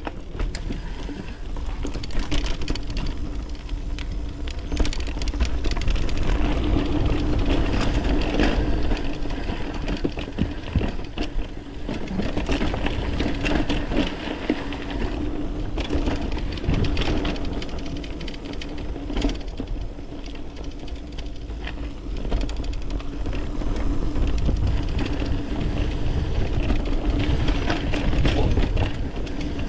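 Mountain bike riding down a rough dirt trail: continuous rattling and clattering of the bike over the ground, with a steady low rumble throughout.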